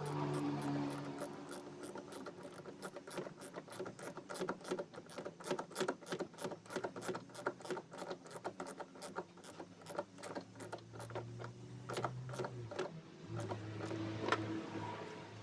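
A ratchet clicking rapidly in quick runs of strokes while tightening a screw-type hose clamp on a diesel fuel hose.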